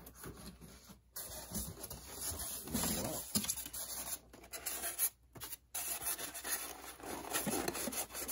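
White foam packing insert rubbing and scraping against the cardboard box as it is lifted out, in uneven bouts of rustling and scuffing, with a couple of brief pauses.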